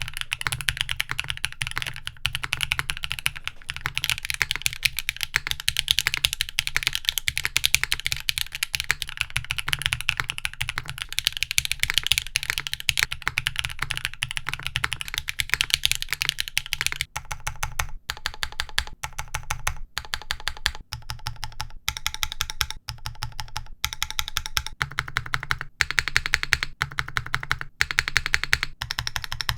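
Typing on a Zephyr 1 mechanical keyboard with an aluminium plate. It first has HMX Sunset Gleam switches and no foam, in a fast, dense run of keystrokes. About 17 seconds in, the sound changes to the same board with Keygeek Blush switches and plate foam, whose keystrokes come more spaced out and sound different.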